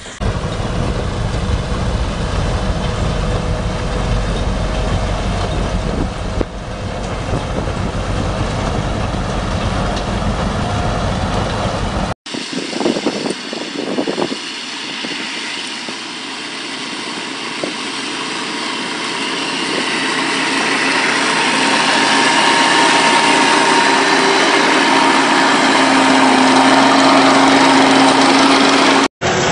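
A railway rotary snowplow running through deep snow, a dense, deep rumble. About twelve seconds in, after a cut, it gives way to the engine of a small tracked snow blower, which grows steadily louder as the machine comes closer.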